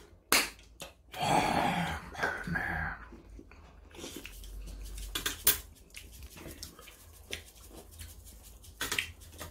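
Eating at a table: chewing, with scattered light clicks and knocks of spoons and dishes.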